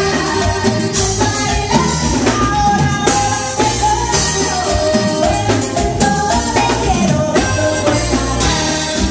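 Live norteño music: a button accordion and a twelve-string guitar with drums, and a woman singing.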